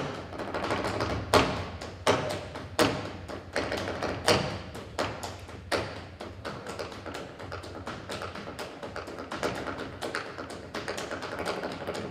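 Flamenco dancer's shoes striking a wooden stage in zapateado footwork. Sharp stamps come about every three quarters of a second for the first six seconds, then give way to quicker, lighter taps.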